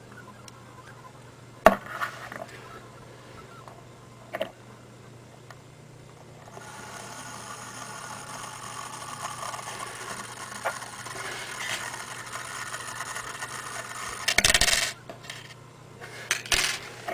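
Homopolar motor: a bent copper wire spinning on top of an AA battery, its ends scraping and rattling against the battery in a steady run from about six seconds in. The run ends in a loud clatter near the end as the wire comes off, with a few sharp clicks before it and more clinks after it as the parts are handled on the table.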